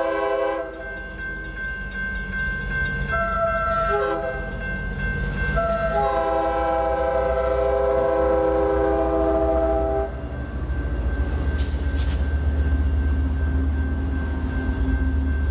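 Diesel locomotive's multi-chime air horn blowing for a grade crossing. There are several blasts: the tail of one at the start, two short ones about three and four seconds in, then a long blast held until about ten seconds in. Then the locomotive's diesel engine rumbles low as it passes close by, with a brief hiss about twelve seconds in.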